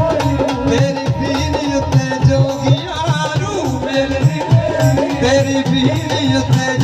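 Live Punjabi folk music, instrumental: a keyboard melody over a steady beat on a hand-played barrel drum (dholak).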